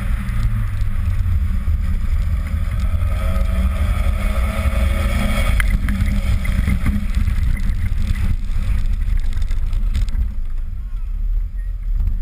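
2000 Toyota Celica GT's 1.8-litre four-cylinder engine running as the car drives slowly, with a steady low rumble of wind and road noise on the microphone.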